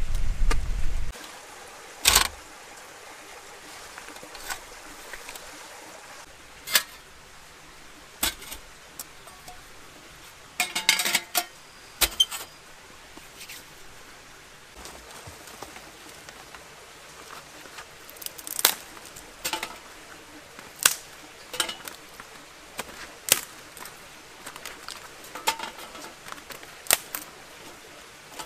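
Scattered metallic clicks and clinks of a folding metal twig stove being handled, with sticks knocked and placed into it, against a quiet forest background. A low rumbling noise cuts off about a second in.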